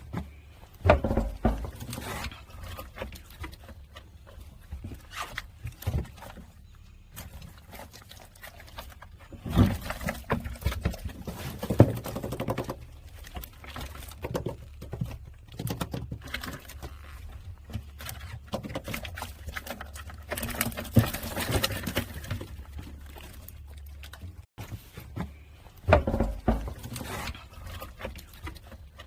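Freshly caught gizzard shad flapping and slapping, an irregular patter of knocks with louder flurries now and then.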